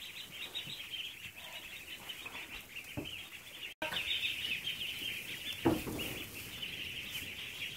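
A crowd of Khaki Campbell ducklings peeping without a break, a dense high chorus of many overlapping calls. A brief thump comes about two-thirds of the way through.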